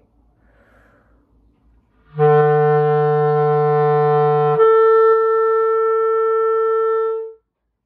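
Clarinet playing a held low E for about two and a half seconds, then jumping up a twelfth with the register key to the B in the clarion register, held about three seconds before stopping.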